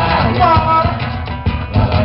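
Live Mato Grosso folk dance music with a steady beat. One note is held briefly about half a second in.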